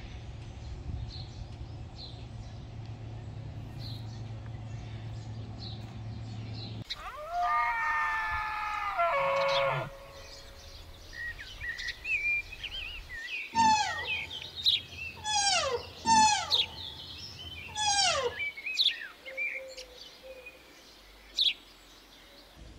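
Birds chirping and calling, with a run of loud whistled calls that slide steeply downward, one after another. Before them comes a stretch of steady low hum, then a drawn-out pitched call lasting about three seconds.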